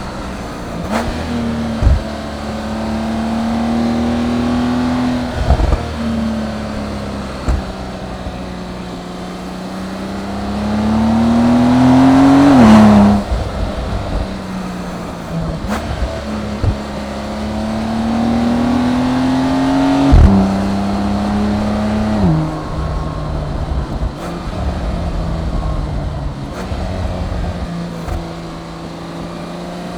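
Porsche 911 Turbo's twin-turbo flat-six engine pulling hard. Its pitch climbs to a loud peak and drops sharply at an upshift about 13 seconds in, climbs again to another shift about 20 seconds in, and settles to steady cruising after one more shift. A few short knocks come through along the way.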